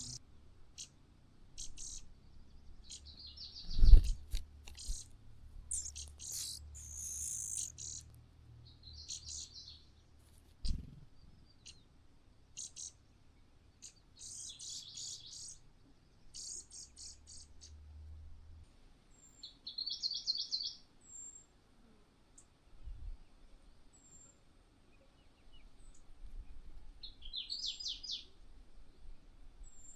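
Small birds chirping in repeated short bouts of high calls, with faint single high peeps in the second half. A sharp low thump comes about four seconds in and another near eleven seconds.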